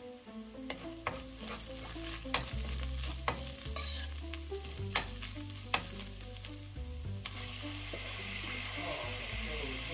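Metal spoon stirring and scraping fried onions in a stainless steel kadai, with sharp clicks of the spoon against the pan. About seven seconds in a much louder sizzle starts as raw shrimp go into the hot oil.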